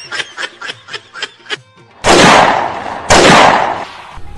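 A music beat of evenly spaced clicks for a second and a half. Then come two loud blast sound effects about a second apart, each dying away over most of a second.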